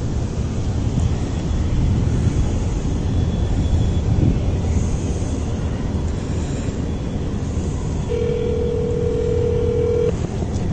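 Steady low rumble of wind buffeting the microphone. Near the end a phone ringback tone sounds once for about two seconds as a call is placed on speaker.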